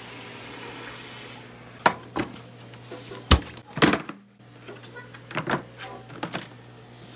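A series of sharp knocks and clunks, like hard objects being handled and set down, starting about two seconds in, with the loudest near the middle. A steady low hum runs underneath.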